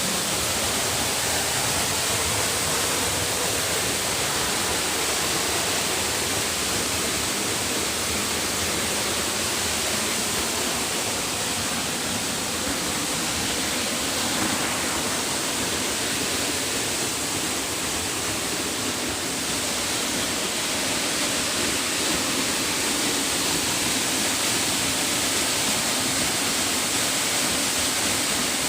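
Waterfall: water pouring down onto rock and into a pool, a steady, loud rushing.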